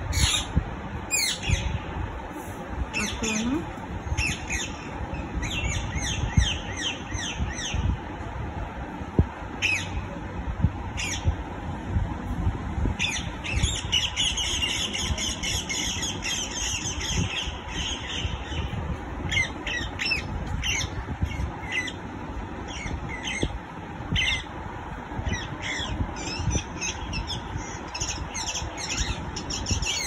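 Parrot squawking and chirping in many short, sharp calls, with a denser run of chattering calls around the middle, over a steady low rumbling background noise.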